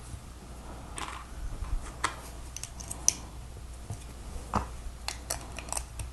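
Irregular small plastic clicks of Lego pieces being handled and pressed together, with one sharper click about three seconds in.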